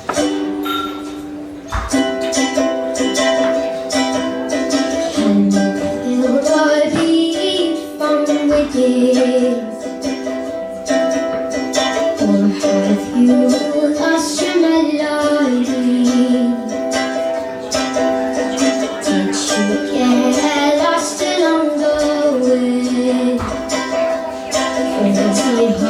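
A woman singing to a strummed ukulele. The ukulele plays alone at first, and her voice comes in a few seconds in.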